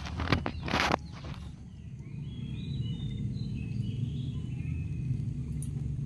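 Catfish splashing at the surface of shallow pond water, two sharp splashes within the first second as they strike at food. A steady low rumble and faint high chirps follow.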